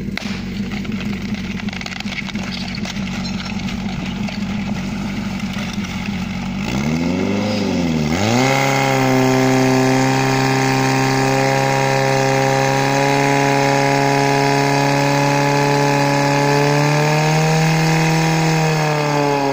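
Portable fire pump's engine running at a steady low speed, then after a quick rev up and back down it is opened up to high, steady revs as it drives water through the hoses to the jets. Near the end the revs fall away.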